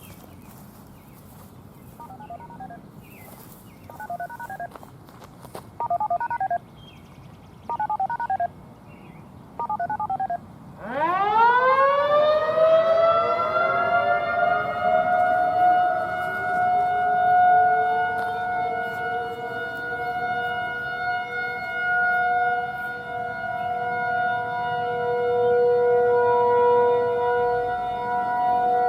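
Five short bursts of beeping tones about two seconds apart. About 11 seconds in, a Federal Signal 2001-130 rotating siren starts up, its chord of tones gliding up from low and settling within a few seconds into the steady alert tone, which swells and fades in loudness as the head turns.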